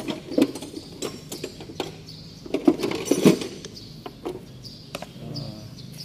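Metal bulldozer transmission control valve body being handled and turned over in gloved hands: a series of sharp metal clicks and knocks, the loudest cluster about three seconds in.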